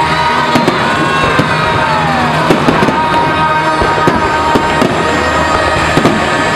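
Fireworks going off in quick succession, many sharp bangs and crackles, over music playing.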